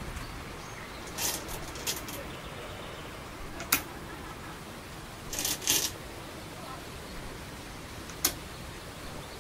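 Go stones clicking and clattering. Stones rattle in a bowl as a player picks one out, twice. Sharp single clicks of a stone snapped down onto the wooden board come about four seconds in and again near the end.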